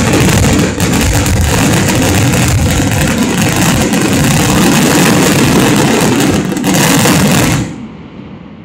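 Closing barrage of a fireworks display: a dense, continuous mass of shell bursts and bangs. It stops abruptly about seven and a half seconds in, then dies away over a few seconds.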